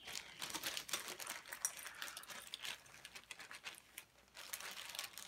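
Loose LEGO plastic pieces rattling and clicking against each other as they are handled and gathered up, in a rapid, dense clatter with a short lull about four seconds in.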